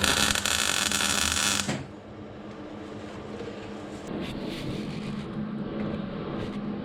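A power tool's motor running: loud and harsh for the first two seconds, then quieter and steady.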